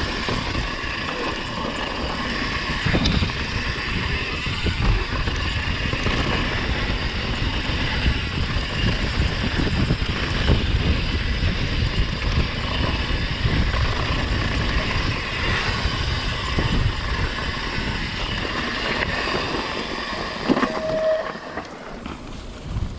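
Mountain bike riding fast down a dirt trail: a steady rush of tyre and air noise with frequent knocks and rattles as the bike runs over rough ground, and a short squeal near the end.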